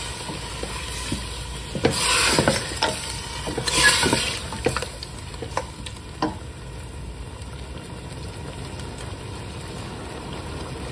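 Lamb pieces browning in ghee with garlic-ginger paste in a stainless steel pot, sizzling as they are stirred with a wooden spoon. Scraping swishes and knocks of the spoon against the pot come in the first half, then the sizzle goes on steadily.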